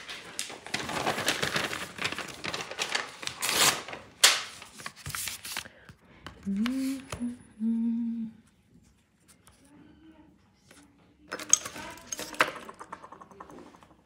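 Rustling and light clatter of small objects being handled on a table, in a stretch lasting the first few seconds and again briefly later. Around the middle a woman hums a few short notes.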